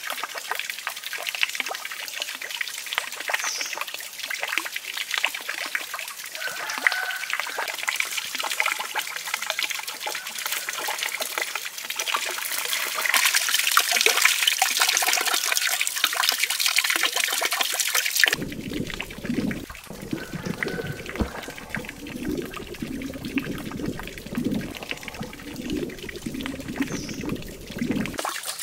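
Water trickling and pouring steadily into a small pond. From about 12 seconds in it swells into louder splashing as a basketful of live red fish is tipped into the water and the fish thrash. About 18 seconds in the sound cuts suddenly to the muffled, low churn of water heard from underwater.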